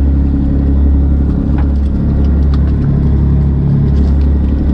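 Fishing boat's engine running with a steady low drone, with a few faint clicks over it.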